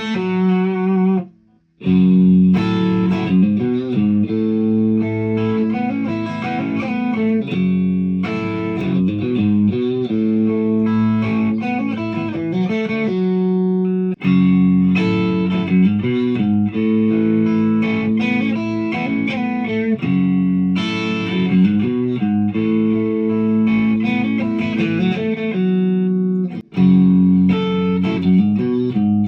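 Ibanez Prestige RG1070PBZ electric guitar played through an amplifier in phrases of ringing notes, with short breaks about a second in, around halfway and near the end.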